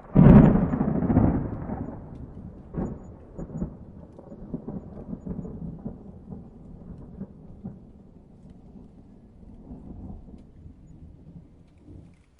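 A clap of thunder: a sudden loud crack and heavy rumble right at the start that fades over a couple of seconds, then rolling rumbles and scattered crackles that go on and cut off suddenly near the end.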